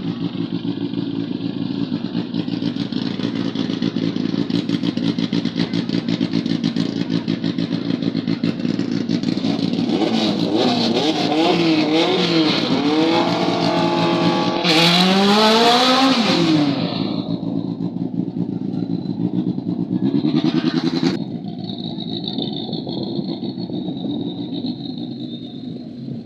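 Drag-race vehicle engine idling steadily, then revved up and down several times from about ten seconds in, with the loudest rev rising and falling away around fifteen seconds and one more short rev near twenty seconds before it drops back.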